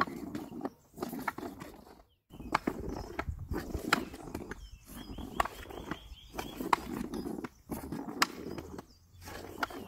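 Hockey stick blade scraping back and forth across a dryland training surface, with sharp, irregular clicks as it knocks and picks up the puck during stickhandling.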